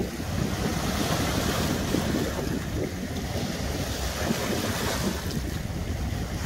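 Small sea waves breaking over and washing among seaweed-covered rocks, a continuous churning wash that surges louder a couple of times as waves come in.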